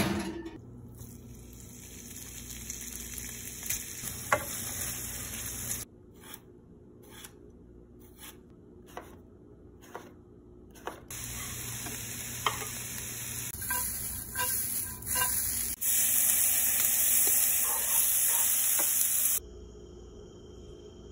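A knife cutting zucchini on a wooden cutting board, a handful of separate knocks, then several seconds of loud, steady sizzling as the vegetables fry in hot oil in a pan. The sizzling stops suddenly near the end.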